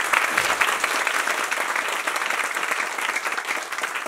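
A large audience applauding, many hands clapping together in a dense, steady patter that eases slightly near the end.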